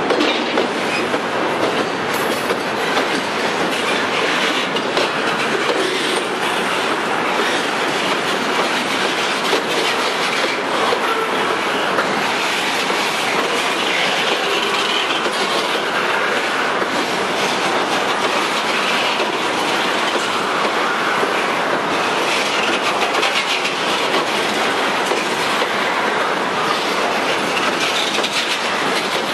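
Freight train of boxcars and covered hoppers rolling slowly past close by: a steady clatter and rumble of steel wheels on the rails.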